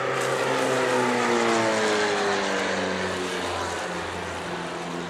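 Propeller engines of a pair of Silence Twister aerobatic monoplanes pulling up into a climb, the engine note falling steadily in pitch as they pass, then levelling off lower.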